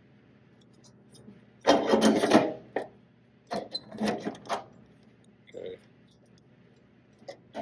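A sheet-metal patch panel is handled and set back onto a car fender. Metal rubs and scrapes on metal for about a second, starting a little under two seconds in, then comes a cluster of shorter scrapes and clicks, and one small knock later.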